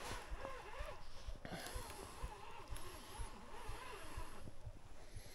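An angler breathing hard while playing a hooked carp on his bottom rod, with frequent short low bumps of handling.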